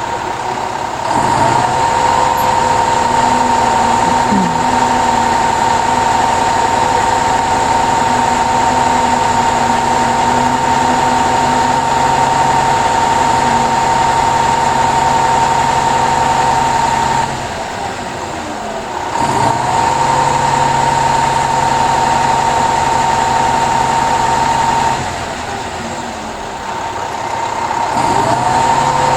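A truck engine runs with a steady whine. It revs up about a second in, drops back twice (around two-thirds of the way through and near the end), and comes back up each time.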